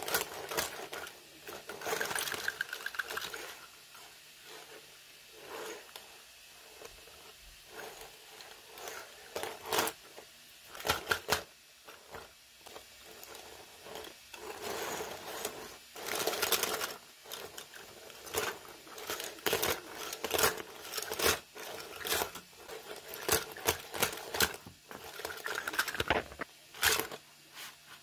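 Clicking and clattering of a 3D-printed articulated tree frog's plastic joints as it is handled and its segmented legs flop and knock against a hard surface, with soft rubbing in between. The clicks come irregularly, in small clusters, throughout.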